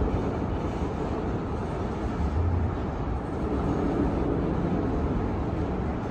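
Freight 'trash train' of flatcars loaded with green municipal-waste containers rolling past, a steady low running noise of wheels on rails.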